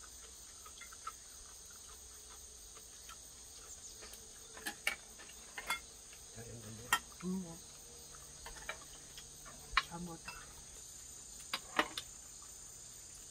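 A steady, high chorus of insects, with scattered sharp clinks of metal chopsticks and spoons against stainless steel bowls as people eat.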